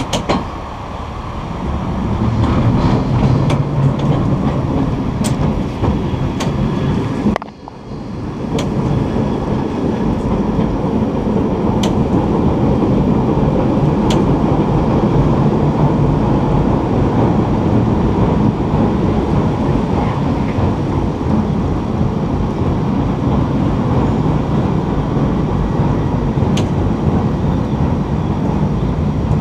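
Single-ended San Francisco cable car running along wet track: a steady low rumble with a few sharp clicks. It dips out briefly about seven seconds in.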